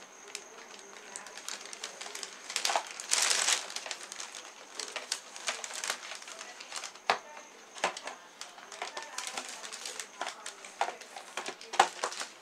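Plastic parts of a table fan's base being handled and fitted together: scattered clicks and knocks with rustling, a louder rustle about three seconds in and a sharp knock near the end.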